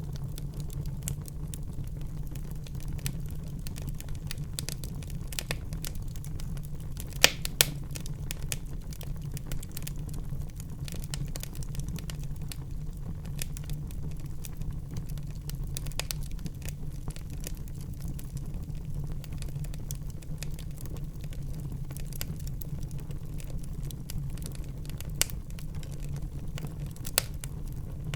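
Wood fire burning in a fireplace: a steady low rumble of the flames with continual small crackles, and a few louder pops, a pair about seven seconds in and two more near the end.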